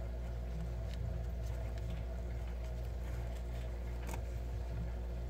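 A steady low background hum, with a few faint ticks and rustles from a crochet hook working acrylic yarn.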